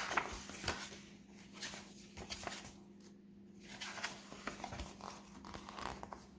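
Pages of a paperback picture book being flipped and turned by hand: soft, irregular paper rustles and flicks, over a faint steady hum.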